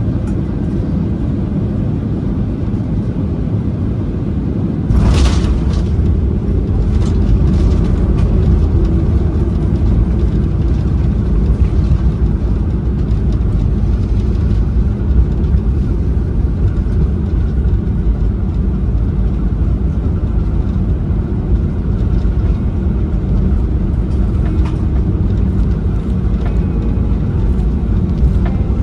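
Airbus A320neo cabin rumble while the aircraft taxis, from its engines and its wheels rolling over the pavement, heard from inside the cabin. About five seconds in there is a brief crack, after which the rumble steps up louder and stays there.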